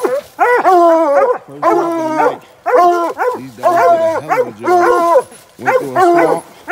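Coonhounds barking treed, a drawn-out bawling bark about once a second with the calls sometimes overlapping: the hounds are at the den tree the coon has run into.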